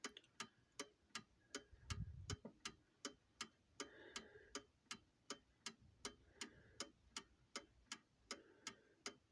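New Haven mantel clock movement ticking evenly and faintly, close to three ticks a second, with the mainspring fully wound and the pendulum at its widest swing. Its half deadbeat escapement runs with very slight recoil.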